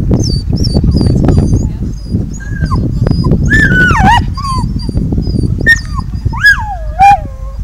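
A dog whining and yelping: a run of high, sharply falling whimpers starting about two and a half seconds in, growing louder, the loudest three near the end.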